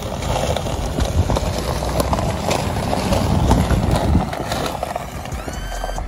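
Footsteps crunching on gravel as someone walks with the camera, over a gusty low rumble of wind on the microphone. Near the end a few rising electronic tones come in as music starts.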